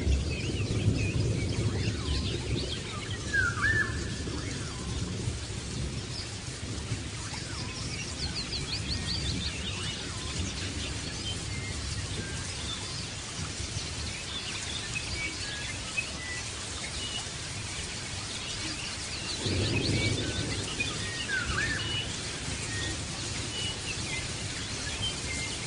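Small birds chirping and calling, with many short high notes and a few quick sweeping calls, over a steady low rumble that swells near the start and again about twenty seconds in.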